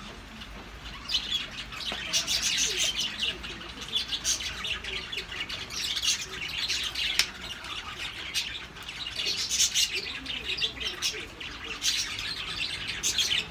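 Birds chirping and squawking, many short sharp calls coming in quick clusters.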